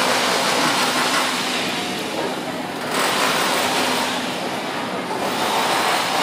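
Busy city street ambience: a steady wash of traffic with a murmur of voices from passers-by.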